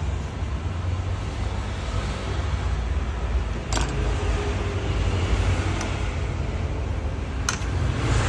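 Steady low rumbling background noise, with two sharp clicks about four seconds apart, one near the middle and one near the end.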